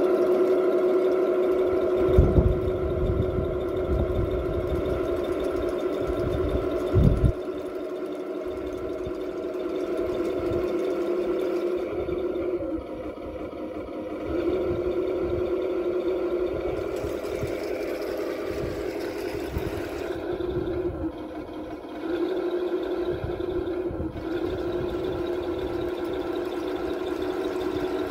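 Heng Long 1/16 King Tiger RC tank running: a steady engine-like drone with the whine of its drive motors, dipping twice as the tank slows. Two low thumps come a few seconds apart near the start.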